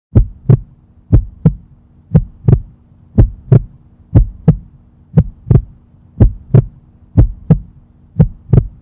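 Pairs of deep thumps in a heartbeat rhythm, about one pair a second, over a faint steady hum. It is an added end-of-video sound effect that starts suddenly out of silence.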